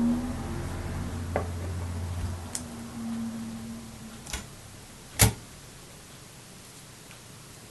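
A few light clicks and one sharp knock about five seconds in as a metal neutral plate is slid down over the cell stack's guide rods and pressed into place, over a low hum that fades out in the first few seconds.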